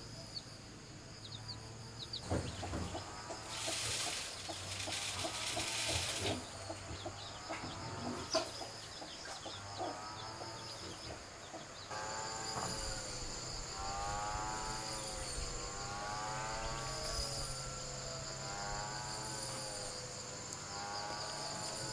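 Chickens clucking, with scattered clicks and a couple of seconds of hissing noise about four seconds in. From about halfway, insects keep up a steady high buzz under the hens' wavering calls.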